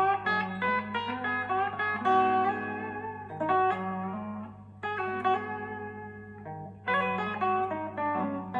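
Electric guitar, a goldtop Gibson Les Paul with Parson Street Golden Age humbuckers, played through an amp: single-note lines of picked notes, some left ringing, with short pauses between phrases. A steady low hum sits underneath.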